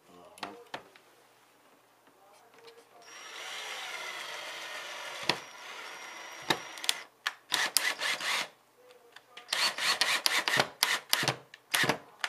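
Power drill driving screws into wood: a few knocks near the start, a steady run of about two seconds, then many short stop-start bursts of the drill.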